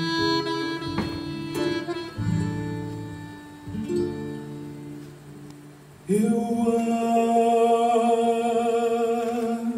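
Fado played live: guitars pluck slow single chords that ring and fade away. About six seconds in, a male voice enters on a long held note with vibrato over the guitars.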